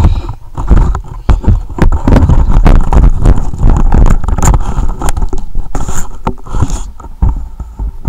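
Handling noise from a handheld camera carried while walking outdoors: a heavy rumble of wind on the microphone, with rustling of a jacket and many short knocks and scrapes.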